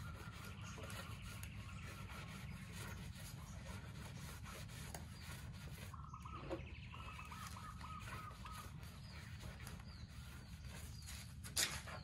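Chickens clucking in short runs of calls over a steady low rumble, with one sharp knock near the end.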